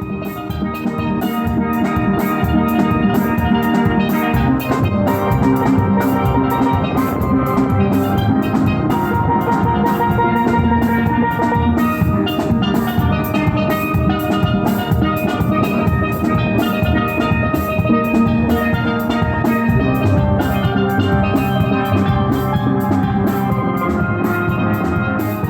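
Caribbean steel pan (steel drum) playing a melody of ringing pitched notes over a steady percussion beat.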